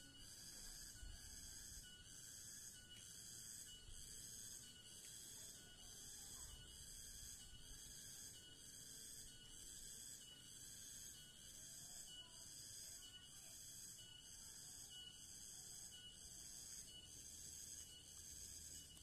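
Faint, high-pitched insect chirring that pulses in a steady, even rhythm.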